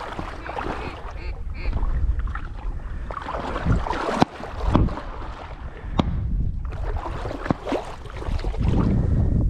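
Waterfowl calls, quacking and honking, over a steady low rumble of wind on the microphone. There are a few sharp clicks, the strongest about four and six seconds in.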